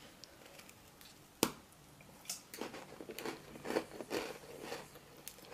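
Someone biting into a crunchy MRE shortbread cookie, with one sharp snap about a second and a half in, followed by a run of irregular crunchy chewing.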